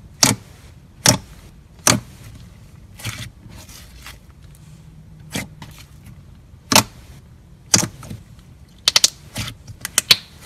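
Thick, doughy slime squeezed and kneaded by hand, giving sharp clicks and pops: single ones every second or so, then a quick run of several near the end.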